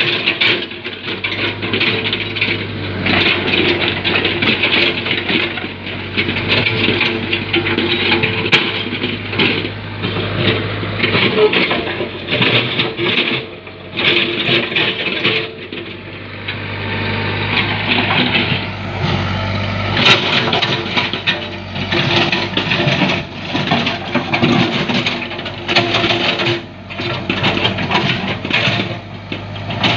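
Komatsu backhoe's diesel engine running steadily, with irregular scraping and clattering as it works through a clogged waterway.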